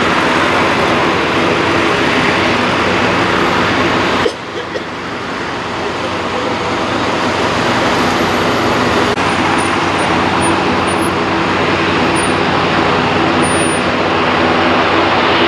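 Airbus A320 jet engines running at taxi power on the runway: a steady roar with a low hum underneath. The roar drops off suddenly about four seconds in and then builds back up over the next few seconds.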